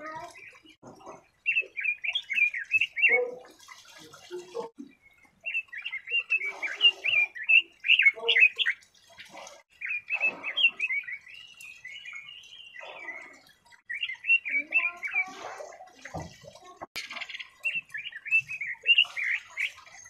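Red-billed leiothrix singing: bouts of rapid, high warbling notes, each a few seconds long with short pauses between. Fainter, lower sounds run underneath, and there is a single knock about sixteen seconds in.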